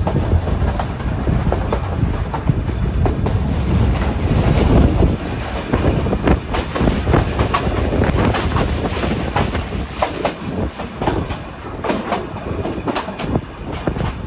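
Nilgiri Mountain Railway toy train running on metre-gauge track, heard from a carriage window: a steady rumble with the wheels clattering irregularly over the rail joints.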